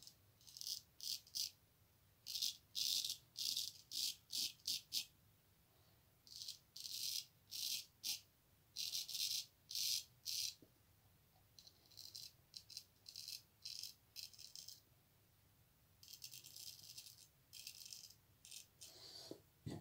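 Freshly honed straight razor scraping through lathered stubble in short, quick strokes, coming in runs of four to eight strokes with short pauses between runs; the later strokes are quieter.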